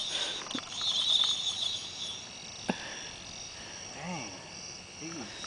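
Evening insect chorus, a steady high chirring, with a single sharp click about two and a half seconds in.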